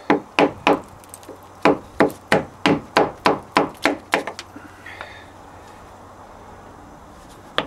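Mallet driving a wood chisel into an old boat plank to cut a piece off the scarf joint. Three quick blows, a short pause, then about nine steady blows at roughly three a second, then a gap and one last blow near the end.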